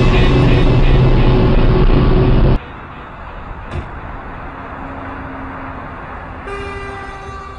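John Deere self-propelled forage harvester with a six-row maize header running under load, heard from inside the cab as it cuts standing maize. The sound cuts off abruptly about two and a half seconds in, leaving a much quieter steady sound with a few held tones near the end.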